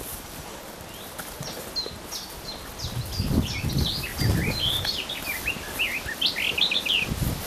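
A songbird sings a long run of quick chirping notes, starting about a second and a half in and thickest near the end. Underneath are footsteps and the swish of legs brushing through tall grass and undergrowth.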